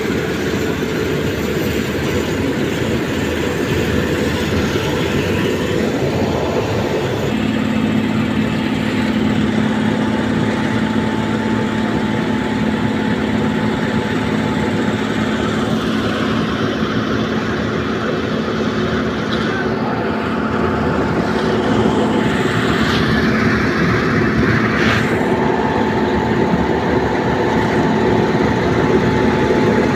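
Heavy machinery running steadily, with a continuous dense rattling clatter over a droning engine hum.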